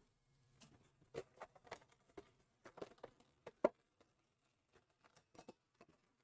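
Light, irregular clicks, taps and rustles from handling trading cards and their cardboard and plastic packaging, with one sharper knock a little past halfway.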